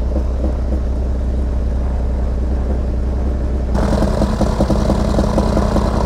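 Twin piston engines of a light airplane idling just after their first start in 37 years, running a little rough with a pop-pop sound. Heard from inside the cockpit at first; a little over halfway through the sound turns suddenly louder and crisper.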